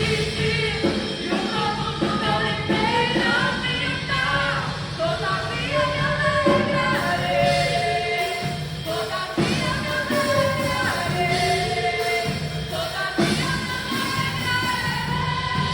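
Live gospel worship music: a woman sings the lead, holding long notes, over a full band backing.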